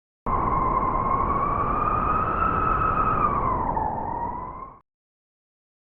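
Wind howling in a steady whistling tone over a rushing noise. It wavers slightly in pitch, dips near the end, and starts and cuts off abruptly.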